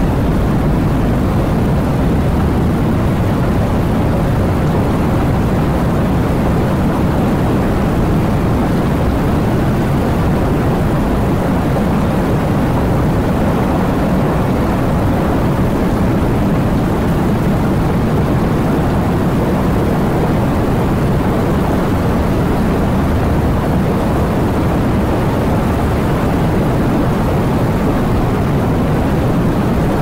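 Steady heavy rain: a dense, even rushing that is strongest in the low range, with no single drops, thunder or breaks standing out.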